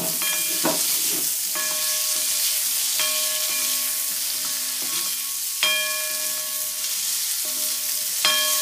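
Small onions and tomatoes sizzling in hot oil in a kadai, stirred with a metal spoon that knocks against the pan every second or two, each knock leaving a short metallic ring.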